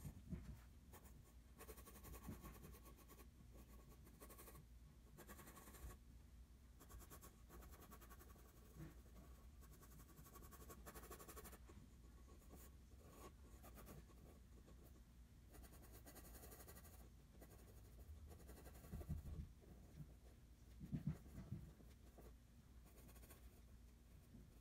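Faint scratching of a graphite pencil on drawing paper, coming in runs of quick hatching strokes. A few soft, low bumps stand out near the end.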